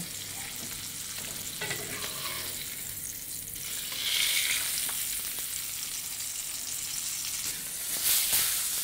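Seasoned salmon fillet sizzling as it fries in hot frying fat in a pan. The sizzle grows louder about four seconds in and swells again briefly near the end.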